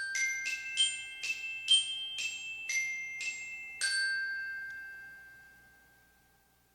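A short chime-like musical jingle on a glockenspiel-type instrument: about ten quick struck notes, the last one ringing out and slowly fading.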